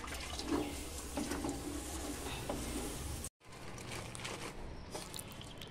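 Scouring pad scrubbing the wet black glass panel of a Kutchina kitchen chimney, a run of rubbing and sloshing strokes. It cuts off suddenly about three seconds in, and faint scattered clicks and taps follow.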